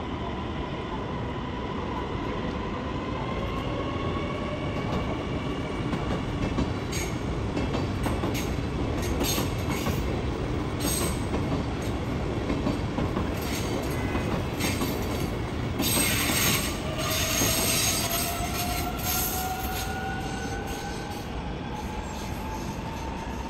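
CRH1A-A high-speed electric train pulling away. Its Bombardier IGBT-VVVF traction equipment gives a whine that rises in pitch as it accelerates, over a steady rail rumble. From about a third of the way in, a run of sharp clicks comes from the wheels crossing the track, loudest about two-thirds in.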